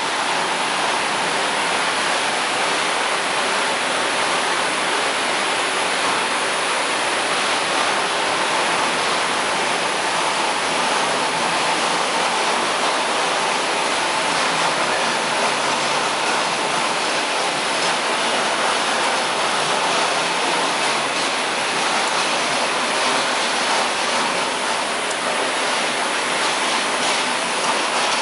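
Steady, even rushing noise with no rhythm and no clear tone, the continuous background din of a machine workshop.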